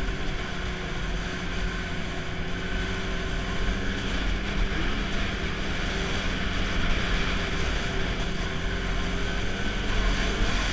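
Snowmobile engine running steadily under way, with an even rush of noise beneath it; the engine note sags slightly in the first few seconds and climbs back toward the end.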